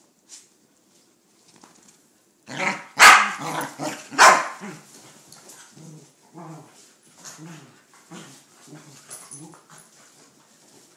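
Corgis play-fighting: a loud burst of barking starts about two and a half seconds in, its two loudest barks about a second apart, then gives way to a run of short growls that repeat to the end.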